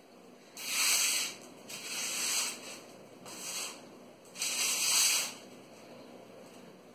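A person breathing hard, four loud breathy exhalations about a second apart: panting to recover after an exercise set.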